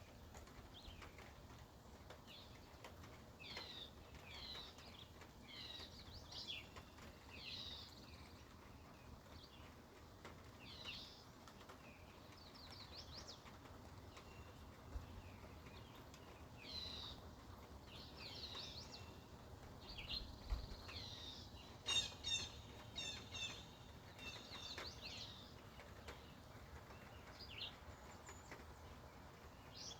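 Wild birds chirping and singing faintly, short calls coming one after another, with a quick rattling trill a little past two-thirds of the way through.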